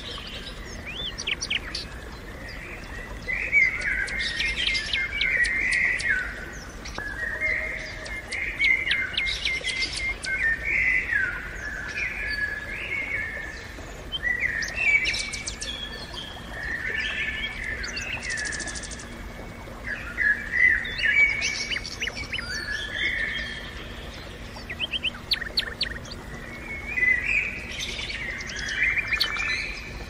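Many small birds chirping and twittering at once, overlapping calls and short trills without pause. A faint steady low hum sits underneath over the second half.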